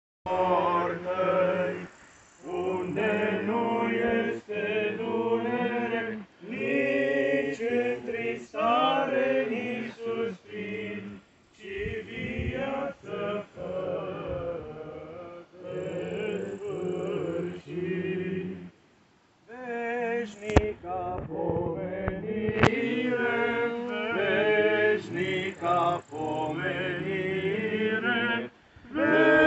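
Men's voices chanting an Eastern Orthodox hymn in phrases of a few seconds, with short breaths between them and a longer pause about two-thirds of the way through.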